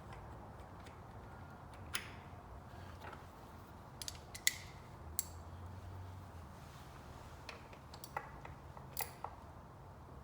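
Scattered, irregular light clicks and taps of metal parts and tools as a new coolant temperature sensor is fitted into the engine, over a faint low hum.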